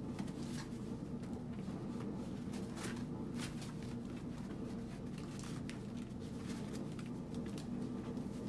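Young puppies' paws scuffling and patting on plastic-backed pee pads, with scattered light clicks and rustles over a steady low hum.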